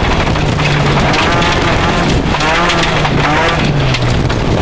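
Rally car engine heard from inside the cabin, pulling hard on a dirt stage. Its pitch climbs and drops several times as the driver works the throttle and gears, over a steady noise of tyres and road.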